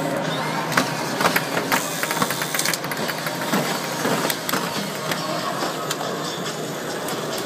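Remote-controlled Combat Creatures Attacknid battle-spider robots walking: small geared motors whirring and plastic legs clicking and clattering on the arena board, with many sharp clicks throughout.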